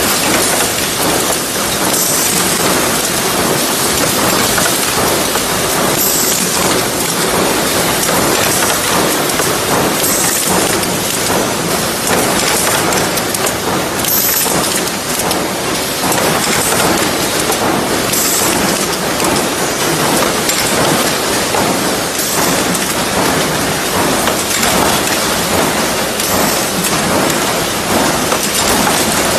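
Automatic ring binder clip assembly machine running: a continuous dense metallic rattle and clatter from the vibratory bowl feeder shaking wire ring clips and from the feed track and tooling, with a brief high hiss about every four seconds.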